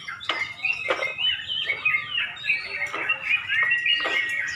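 Several caged yellow-vented bulbuls (trucuk) singing at once: a dense, overlapping chatter of chirps and warbled phrases, with a few quick falling notes.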